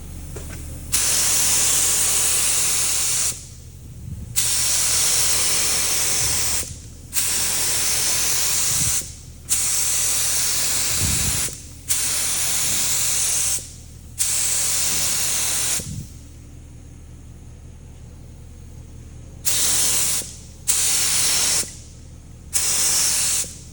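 Compressed-air paint spray gun spraying in about nine trigger pulls, each a loud hiss lasting one to two and a half seconds, with short breaks and a longer pause about two-thirds through. A low steady hum runs underneath.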